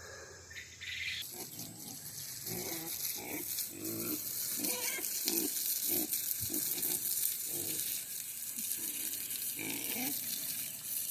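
Farm animals making a run of short, low grunting calls, one or two a second, with uneven spacing.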